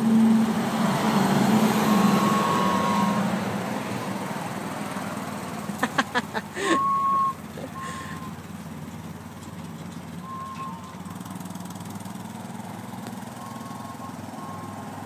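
Riding lawn mower engine running as it pulls a train of barrel cars, loudest at first and fading as it moves away. A short, high, steady beeping tone sounds several times, and a quick cluster of knocks and a louder burst come about six seconds in.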